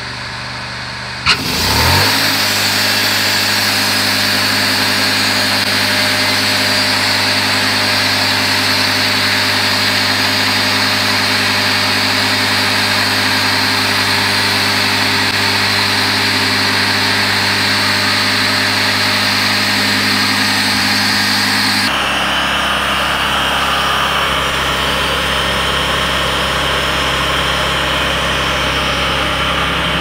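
Wood-Mizer LX250 bandsaw sawmill's engine throttled up with a sharp click about a second in, its pitch rising quickly, then running steadily at speed with the band blade spinning. About 22 seconds in the pitch drops and the sound changes as the blade enters the redwood stump and the engine takes the cutting load.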